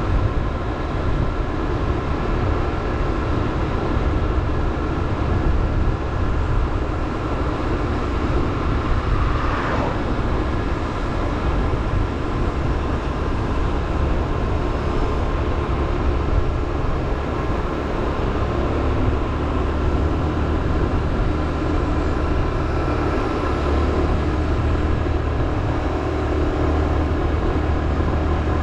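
Motorbike engine running steadily while riding, with the rush of road and wind noise.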